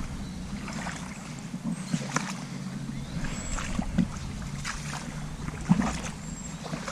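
Legs in chest waders pushing through knee-deep river water, with irregular swishes and splashes at each step.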